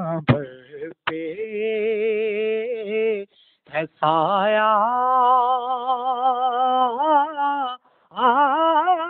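A solo voice singing a naat with no instruments, drawing out long held notes with a wavering vibrato and melodic turns, broken by two short pauses for breath. Two sharp clicks come within about the first second.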